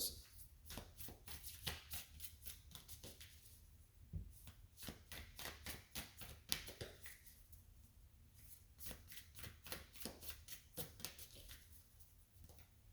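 A deck of tarot cards being shuffled by hand: a faint, uneven run of soft card clicks and flicks.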